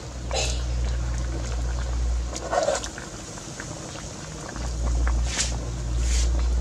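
A metal ladle stirring a pan of vegetable soup, with a few short scrapes and splashes over a steady low rumble.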